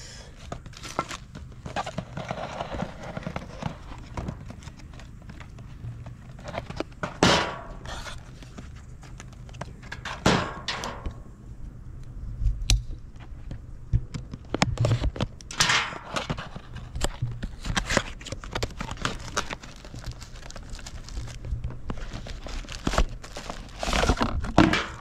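Cardboard box and plastic packaging being handled and opened on a metal patio table as a riflescope is taken out: repeated rustling, scraping and knocks of things set down, the loudest a few seconds apart, over a steady low hum.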